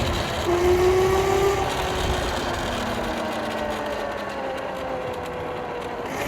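Electric dirt bike's motor whining under load as it climbs a hill, its pitch slowly falling, over wind rumble on the microphone that eases about halfway through.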